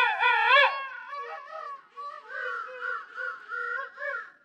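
King penguins calling. A loud warbling call with a wavering pitch comes in the first second, followed by a series of shorter, fainter wavering calls.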